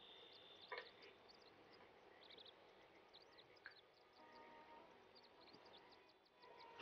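Near silence: faint, short high chirps and ticks scattered throughout, with two soft knocks in the first second.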